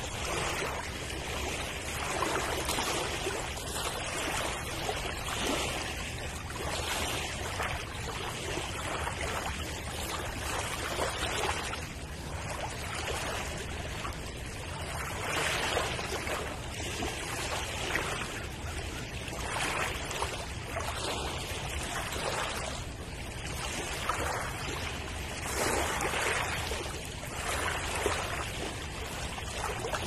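Sea waves breaking and washing in. A steady rush of surf that swells and eases every couple of seconds.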